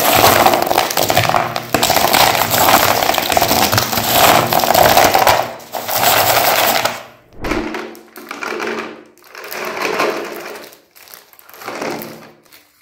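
Foil-wrapped chocolate bars crinkling and clattering against each other as a hand stirs and scoops through a heap of them on a plastic tray. The sound is loud and continuous for about seven seconds, then comes in shorter swells.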